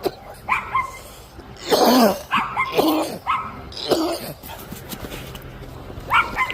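A dog giving a series of short barks and high yips, several sliding down in pitch, with the loudest cluster about two seconds in.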